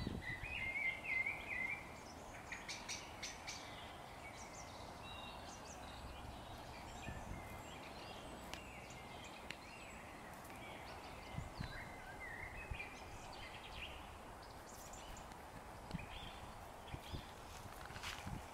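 Small birds chirping in short wavering calls over a faint steady outdoor background, with scattered soft crackles of dry leaf litter.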